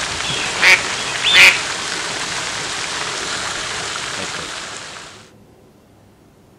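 Steady rush of water beside a pond with a fountain, with a duck quacking twice about a second in. The water noise cuts off after about five seconds.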